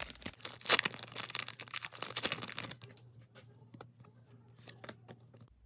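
Trading-card pack wrapper crinkling and tearing as it is opened, for about the first three seconds, then a few scattered light clicks and taps as the cards are handled.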